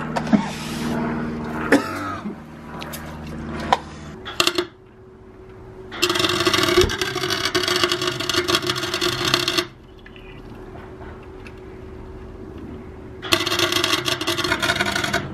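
Gasless flux-core MIG welder arc crackling as it welds a BMW E36 differential's gears solid to lock it, in two runs: one of about three and a half seconds near the middle, then another starting near the end. Before them, a short hiss of anti-spatter aerosol spray.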